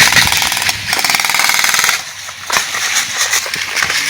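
Airsoft guns firing in rapid full-auto bursts, a fast, continuous rattle of shots with a short lull about two seconds in.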